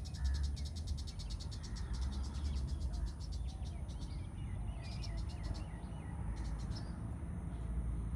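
Outdoor bird and insect calls: a fast, high-pitched trill comes and goes in several spells, and a few short chirps fall in pitch about halfway through. A steady low rumble runs underneath.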